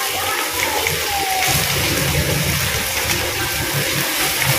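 Tap water running steadily from a wall faucet into a metal pot.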